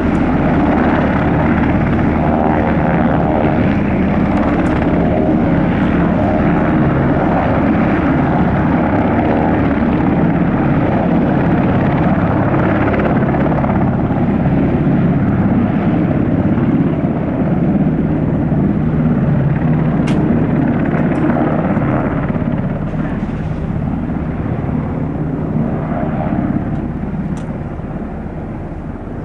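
US Army UH-60M Black Hawk helicopter taxiing, its twin turboshaft engines running and its four-blade main rotor and tail rotor turning, in a steady loud rotor and turbine drone. It grows somewhat fainter over the last third as the helicopter moves off and turns.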